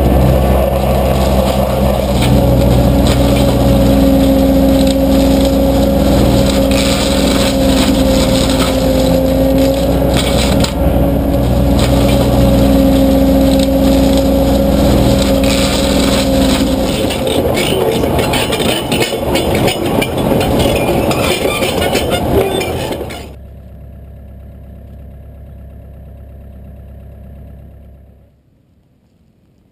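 Excavator-mounted Advance Forestry RDM 34 brush mulcher head running on a hydraulic power pack and grinding brush, a loud steady machine drone with a held whine over a rough shredding noise. About 17 s in the low drone drops away, leaving rougher grinding. About 23 s in the sound falls abruptly to a quieter steady hum, which drops again near the end.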